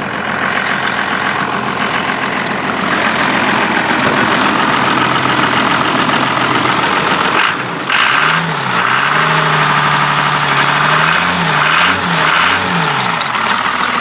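12-valve Cummins inline-six turbo diesel running steadily; about halfway through there is a brief break, and then the engine speed rises and falls several times as it is revved.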